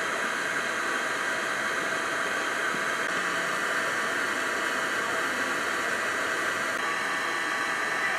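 Steady, even outdoor hiss with no distinct event.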